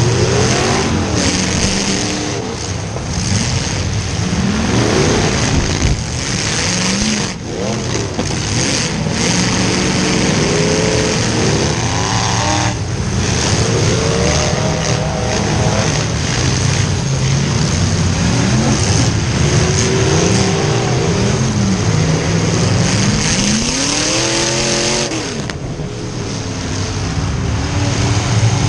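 Demolition derby cars' V8 engines, heard from the roof of one of the cars, revving up and dropping back again and again, several revs overlapping.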